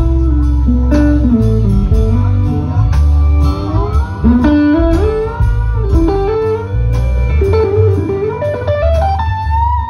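Live band music: an electric guitar plays a solo, its melody bending and sliding between notes over a steady low bass line.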